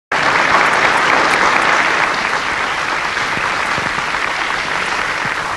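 Audience applauding, starting abruptly and easing a little after a couple of seconds.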